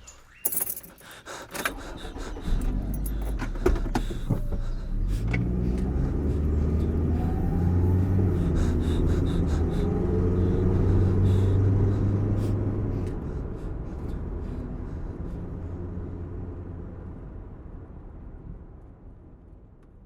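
Keys jangling and clicking, then a car engine rumbles up. It grows louder for several seconds and then fades slowly away.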